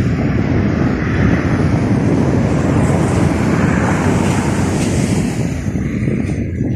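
Jet engine roar of a Boeing 737-800's CFM56-7B turbofans at takeoff power, heavy in the low end, with wind buffeting the microphone. The higher hiss dies away near the end.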